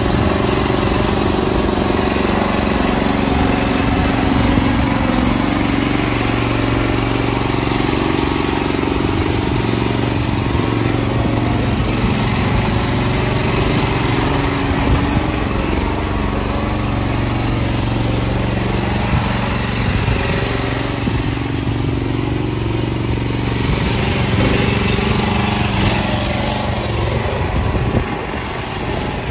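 Dragon PB1000 tracked power barrow's small petrol engine running steadily as the machine drives along with a bucket full of soil. The engine note drops near the end.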